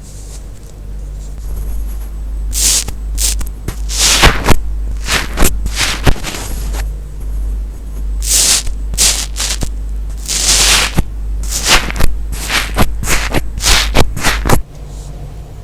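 Iceberg slime being poked and pressed close to the microphone: its dried crust crackles and pops in many sharp clicks, with several longer crunching, hissing bursts as it breaks.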